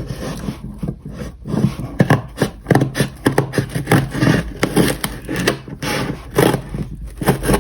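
Cardboard shipping box being worked open by hand: a run of irregular scraping and rubbing strokes of cardboard and tape, with a steady low hum beneath.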